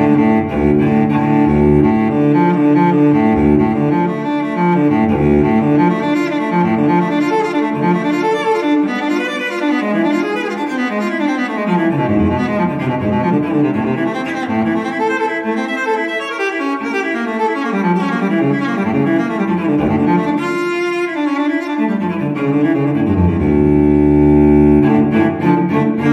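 Background music led by bowed strings, with low cello and double bass notes moving steadily from note to note.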